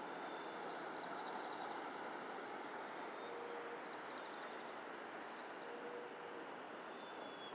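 Small songbirds giving short, high trilled chirps three times over a steady rushing outdoor background.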